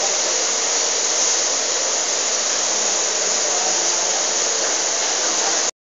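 Steady loud hissing noise that cuts off abruptly just before the end.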